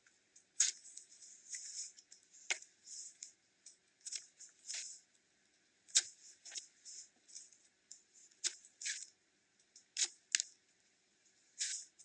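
Butter slime being pressed and kneaded by hand, giving irregular sharp sticky pops and short crackly squishes as the fingers press in and pull away, with brief quiet gaps between them.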